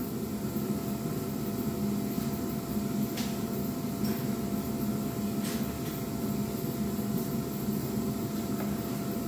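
Steady mechanical hum with a faint higher whine held on one note, and two faint clicks about three and five and a half seconds in.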